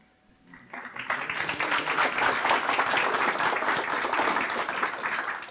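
Audience applauding, starting under a second in, holding steady and dying away near the end.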